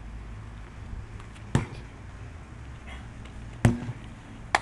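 A 20 lb sledgehammer striking a tyre in overhead swings: a heavy thud about a second and a half in, another about two seconds later, and a sharper crack at the very end.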